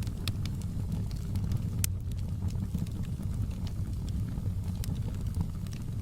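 Fire crackling in a fireplace: scattered sharp pops and snaps over a steady low rumble of the burning fire.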